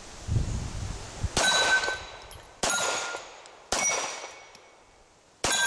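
Four shots about a second apart, each followed by the clang of a bullet striking a steel target plate, the plate ringing on and fading away.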